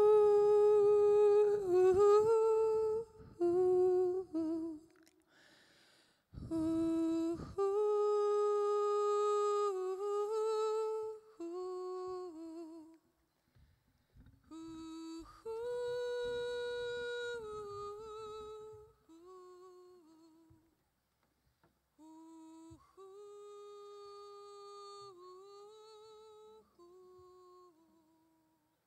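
A single voice humming a slow, wordless melody in long held notes, phrase by phrase with short pauses, growing quieter in the last third.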